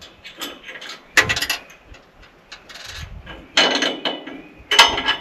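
Steel sawmill parts and tools clanking and rattling as they are worked on by hand: irregular metal clanks with a short ringing after them, three louder ones about a second in, near the middle and near the end, with lighter clicks between.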